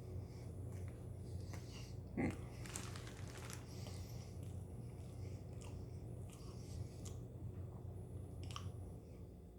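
A person chewing and biting into a Burger King BBQ Brisket Whopper, with scattered small crunchy clicks over a steady low hum. One brief louder sound comes about two seconds in.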